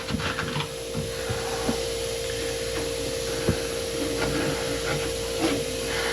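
Light rubbing and a few small scattered knocks as window channel felt weatherstrip (window fuzzies) is worked into place by hand, over a steady background hum.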